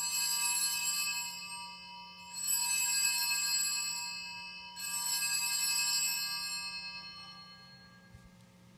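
Altar bells rung three times at the elevation of the chalice, about two and a half seconds apart. Each ring is a cluster of bright, high tones that dies away slowly, and the last has faded out by near the end.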